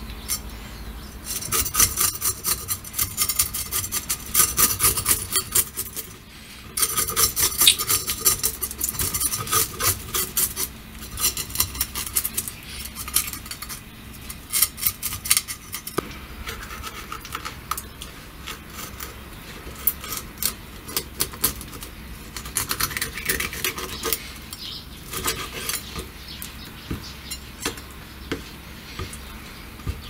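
A small knife scraping the scales off a kisu (Japanese whiting) on a wooden cutting board. Two long runs of rapid rasping strokes come in the first ten seconds or so, followed by shorter, sparser bursts of scraping and cutting.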